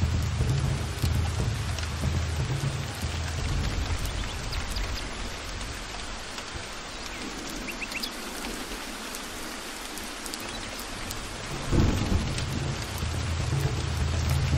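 Heavy rain falling steadily, with thunder rumbling low underneath. The rumble dies away about a third of the way in, then a sudden thunderclap breaks near the end and the rumbling returns.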